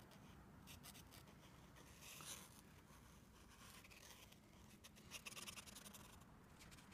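Posca paint marker's tip drawing on sketchbook paper: faint, scratchy pen strokes in short runs, busiest about two seconds in and again after five seconds.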